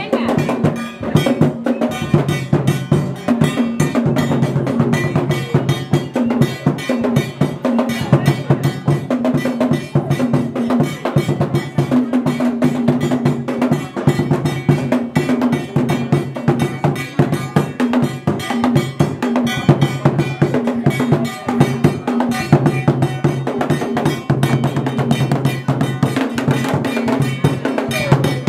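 Traditional drum ensemble playing dense, continuous rhythmic strokes, with a struck metal bell keeping time.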